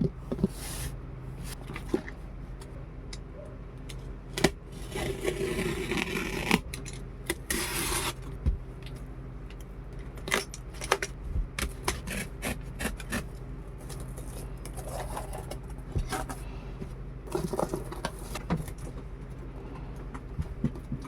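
Toy packaging being handled and opened: irregular clicks, taps and scrapes, with longer stretches of rustling about five and about seven and a half seconds in, over a steady low hum.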